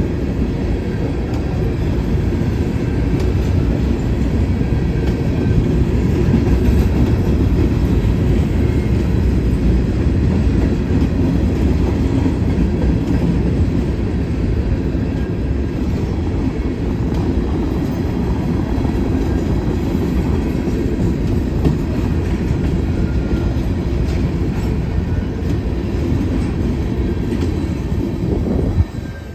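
Grain hopper cars of a freight train rolling past close by: a loud, steady low rolling noise of steel wheels on rail, which drops away suddenly near the end as the last car passes.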